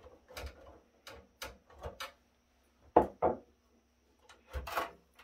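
Hands handling parts and cables inside an open metal computer server case: irregular short clicks and knocks, the loudest about three seconds in, then a longer rubbing scrape near the end.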